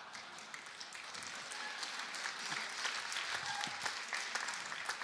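Audience applauding: many hands clapping in a dense, irregular patter.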